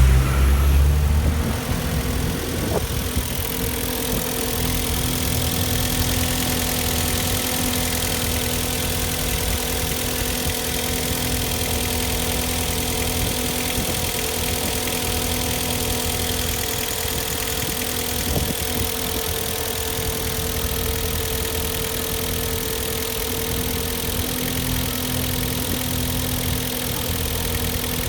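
Hyundai/Kia G4KD 2.0-litre four-cylinder petrol engine running during warm-up. It is louder and deeper for about the first second and a half, then settles into a steady, even idle.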